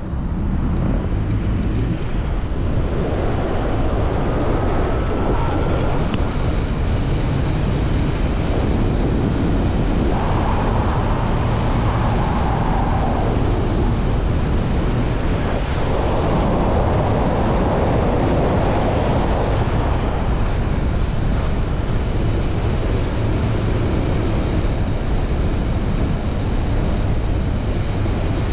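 Wind rushing over the microphone during a fast zipline flight, a loud steady rush heaviest in the low end, with the trolley running along the steel cable.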